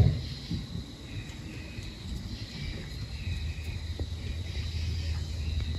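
A sharp knock right at the start, then low steady room hum with a thin, high steady whine and one light tap about four seconds in.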